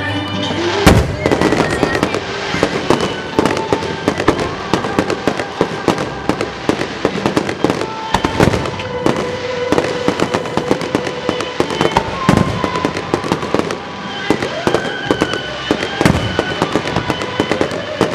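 Aerial fireworks going off in quick succession: dense crackling and popping, with loud bangs about a second in and again around eight and twelve seconds.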